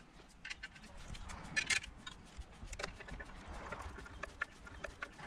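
Scattered light clicks and taps from a hex driver turning stainless screws into a carbon-and-aluminium hydrofoil fuselage and the foil parts being handled, with a small cluster of sharper clicks a little under two seconds in.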